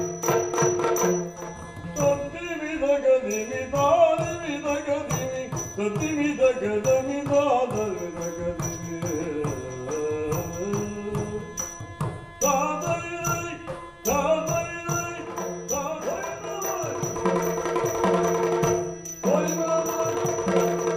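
Yakshagana-style music: a singer's voice in long gliding phrases over a steady drone, with drum strokes keeping time. The singing comes in about two seconds in, breaks briefly in the middle and stops near the end, leaving the drone and percussion.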